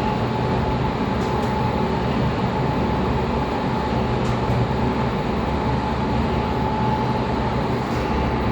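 Fujitec passenger lift car travelling down its shaft: a steady rumble and hum with a thin, constant whine.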